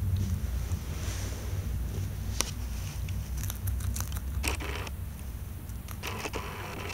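Hamster biting and chewing a strip of raw yellow bell pepper: scattered small crisp clicks, with two short spells of crunching in the second half, over a steady low hum.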